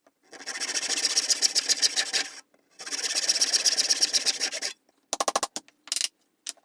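Rapid rasping strokes of a hand tool working material, in two runs of about two seconds each, followed by a few short scrapes near the end.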